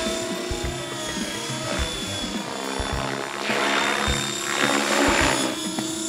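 Large radio-controlled model helicopter flying overhead: a steady motor-and-rotor whine. It swells into a louder rushing blade noise from about three and a half to five and a half seconds in.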